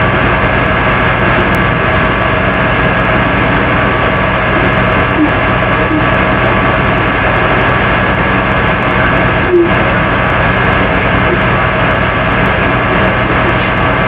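Loud, steady electrical hum and hiss with several steady tones running through it. A few faint short chirps sit under it, and there is one brief sharper blip about nine and a half seconds in.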